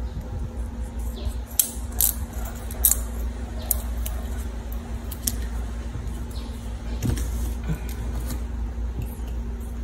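Small scissors snipping a plastic drinking straw: a run of sharp, separate snips, loudest in the first three seconds, over a steady low hum.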